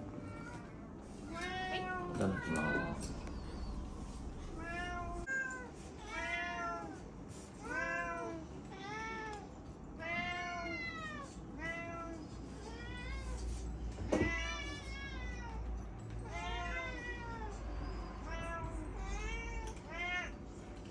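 Domestic cats meowing over and over, a short rising-and-falling meow about every second, the insistent meowing of cats begging for food. There is a sharp knock near the middle.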